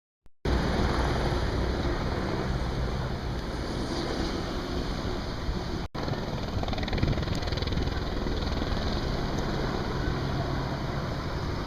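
Helicopter flying low overhead, a steady rotor and engine noise that cuts out for an instant about six seconds in.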